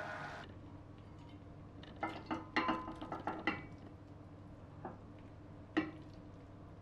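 Cooked cauliflower, potato and ground beef scraped from a frying pan into a glass baking dish: a quick run of clatters and scrapes of the pan against the glass, then two single knocks.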